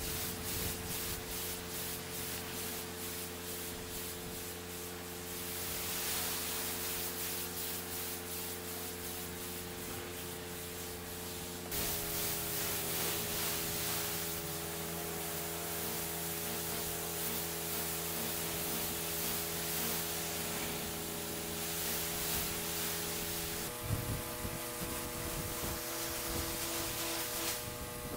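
Pressure washer lance spraying water, rinsing a driveway, over the steady hum of the pressure washer's engine and pump. The hum changes abruptly about twelve seconds in and again near the end.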